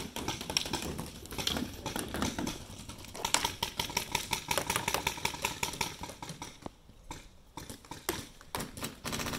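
Paintball markers firing rapid strings of shots, many pops a second, with a steady high tone beneath them for a couple of seconds midway.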